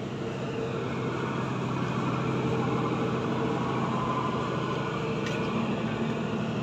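Hartech HT150 150 kVA diesel generator set running steadily inside its soundproof canopy, a constant low engine hum.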